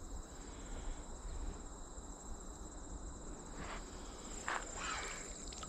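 Insects, crickets by the sound of it, trilling steadily and high-pitched in the grass and reeds, with a few faint rustles in the second half.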